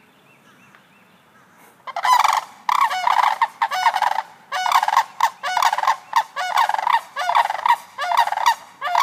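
A pair of sandhill cranes calling together, their loud rolling, rattling calls starting about two seconds in and repeating two or three times a second, the upright-necked display of a unison call.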